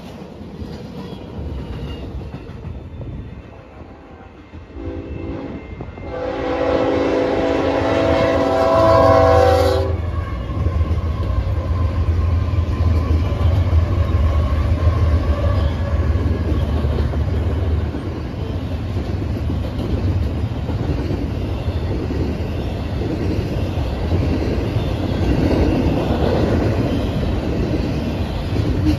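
Freight train cars rolling past on the rails with a clickety-clack. About five seconds in, a multi-tone diesel locomotive horn sounds for about five seconds, the loudest part. It is followed by the low rumble of BNSF diesel locomotives passing, then double-stack intermodal cars rolling by.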